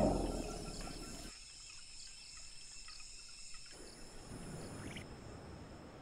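Rainforest clearing ambience: a steady high-pitched insect drone with faint ticks. It opens with the end of a deep, loud animal call that dies away in the first second.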